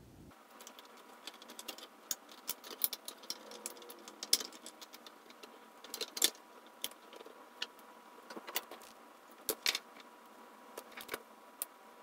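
Scattered light clicks, taps and knocks at irregular intervals as a switching battery charger's circuit board and metal case are handled and turned over on a workbench.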